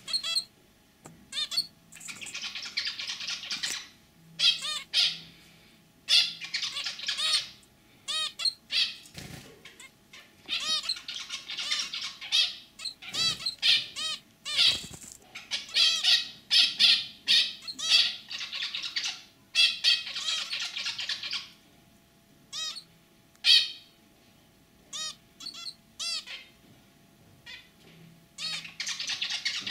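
Zebra finch song and calls: several bouts of rapid, repeated notes, each lasting a few seconds and the longest around six seconds, with single short calls in the pauses between them.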